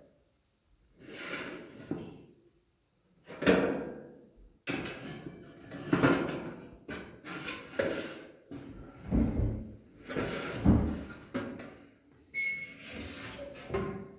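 A countertop electric oven's metal tray and wire rack are handled, clattering and scraping as the tray is slid in along the rack, with a brief metallic ring near the end. The oven's glass door is swung shut.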